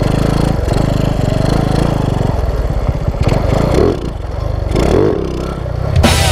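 Honda Wave 125 motorcycle's single-cylinder engine running steadily, dipping and shifting pitch briefly twice around the middle.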